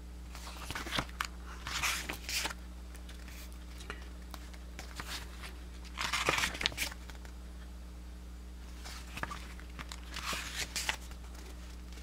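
Pages of a paperback manual being turned by hand: papery rustles in several short bursts, the longest about six seconds in, over a faint steady hum.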